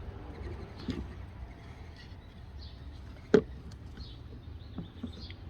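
Handling noises from working on a recoil starter's rope and housing: a few faint taps and one sharp click about three and a half seconds in, over a low background rumble.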